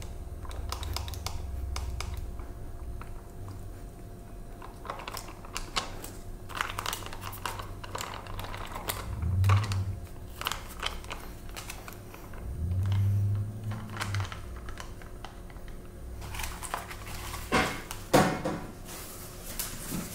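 Crinkling and scattered clicks from a foil pouch of instant curry sauce being squeezed and handled, with two short low, muffled swells partway through. A few louder knocks and rustles come near the end.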